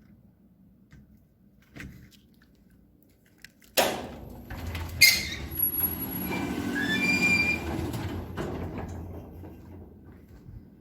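Noise from the neighbouring industrial plant: under a low hum, a sudden loud rush of noise breaks in about four seconds in, with squealing tones over a deep rumble, and dies away over the next five seconds or so.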